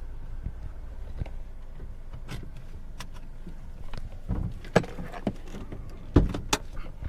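Car seatbelt being unbuckled inside the car: a string of sharp clicks and clunks from the latch and belt in the second half, the loudest about five and six seconds in, over a low steady rumble of the car.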